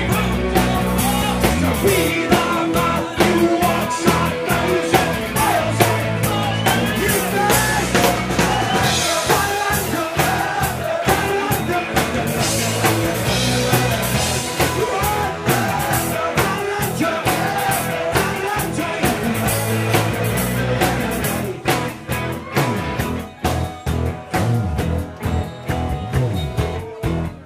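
A live band playing amplified in a pub: drums, electric guitar and sung vocals. About twenty-two seconds in, the music drops back to a sparser beat with sharp drum hits.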